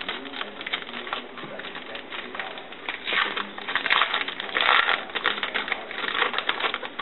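Crinkling and rustling of a foil trading-card pack being torn open and the cards handled, with rapid small crackles that are busiest around the middle.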